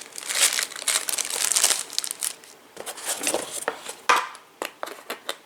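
Packaging crinkling and rustling as accessory cables are unwrapped, loudest in the first two seconds, then a few scattered small clicks and rustles.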